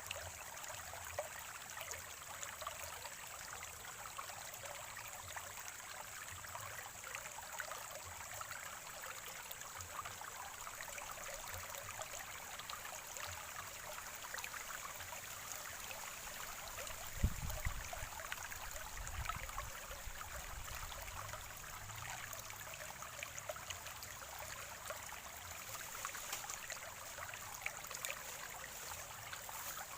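Spring-fed stream water trickling and gurgling steadily over rocks. A brief low thump a little past halfway.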